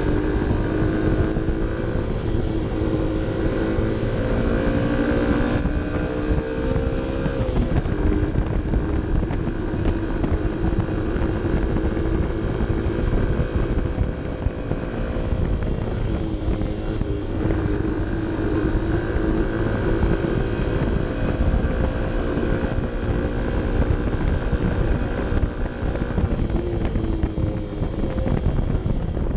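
Honda CB 125 F's small single-cylinder four-stroke engine pulling uphill under load, its pitch climbing slowly and then dropping about six seconds in and again near the end. Heavy wind buffeting on the helmet camera's microphone runs underneath.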